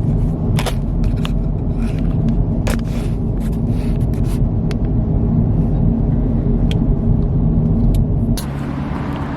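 Road noise inside a moving car: a steady low rumble of tyres and engine with scattered faint ticks. Near the end it drops suddenly to a quieter, steadier hum.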